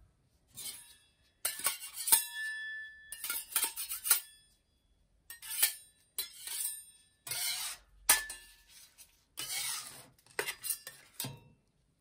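Steel ice-cream spatulas clinking and tapping on the stainless steel cold plate: a series of sharp, irregular clicks, some ringing briefly.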